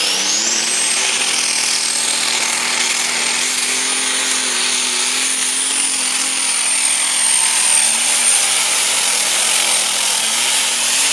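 John Deere superstock pulling tractor's turbocharged diesel engine running at full power as it hauls the sled, with a high turbo whistle that climbs in the first second and then holds steady over the engine's loud, even note.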